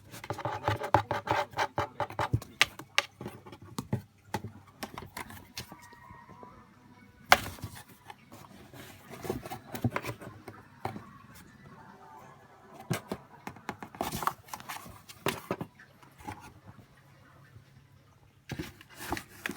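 Cardboard box rustling and scraping in irregular bursts of scratchy clicks as a cat climbs in and shifts about inside it.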